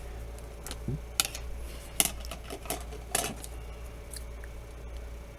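A few sharp clicks and clatters of small hard objects being handled on a work surface, the loudest about one, two and three seconds in.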